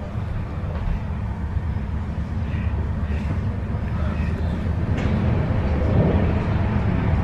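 Steady low rumble and rattle of a commuter electric train running at speed, heard from inside the passenger car. About five seconds in it grows louder with a rushing sound as another train passes close by on the adjacent track.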